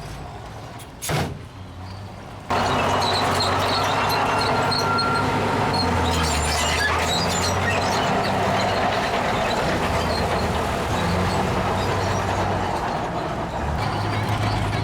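Heavy diesel earthmoving machinery running: a sharp knock about a second in, then from about two and a half seconds a much louder, steady engine noise.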